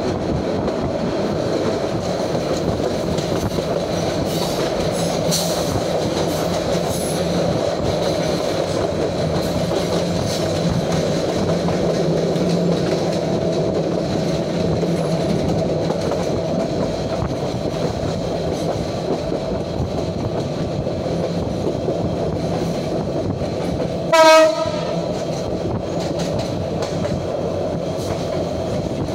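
Passenger train running at speed, heard from on board: a steady rumble of wheels on rails. Near the end a single short horn blast rings out.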